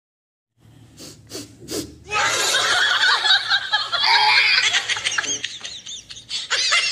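Three short breathy puffs, then a loud burst of laughter from what sounds like several people, which goes on for the rest of the time.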